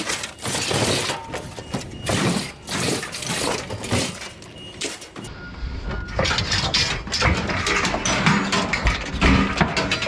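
Scrap being unloaded by hand: repeated clanks and crashes of metal pieces thrown onto a pile. A low rumble joins about halfway through.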